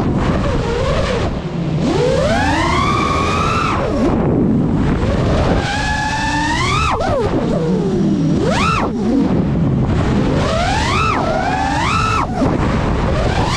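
FPV racing quadcopter's motors and propellers whining, the pitch climbing and falling again and again as the throttle is worked through turns and rolls, with a steady rush of wind and propeller wash underneath.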